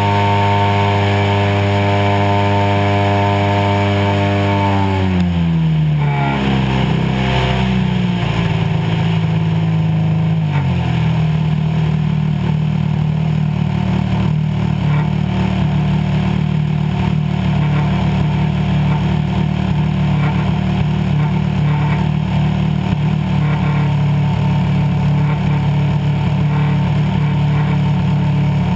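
DA-100 twin-cylinder two-stroke gas engine of a 40%-scale Super Cub RC float plane, heard loud and close from an onboard camera. It runs at high throttle, then its pitch falls over a second or two about five seconds in as the throttle is pulled back. After a small further drop about ten seconds in, it settles into a steady, lower running note.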